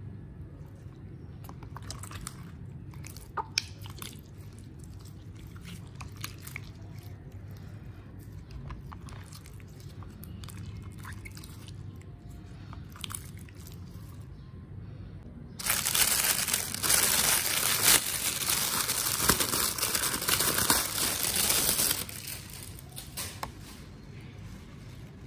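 Hands stretching and squishing a clear glitter slime, giving scattered sticky crackles and clicks. About two-thirds of the way through, a much louder spell of dense crackling starts suddenly, lasts about six seconds and stops abruptly.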